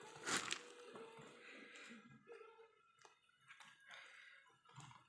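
Large leaves lining a basket rustling and crinkling as a hand moves eggs among them, with a few soft clicks. The loudest crackle is about half a second in.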